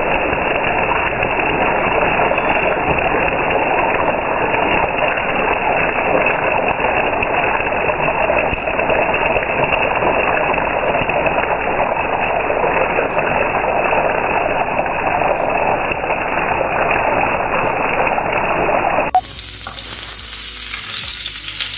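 Thin slices of pepper-, salt- and lemon-marinated chicken sizzling in hot oil in a frying pan, a dense steady crackle. About 19 seconds in the sound changes abruptly and the sizzling goes on quieter.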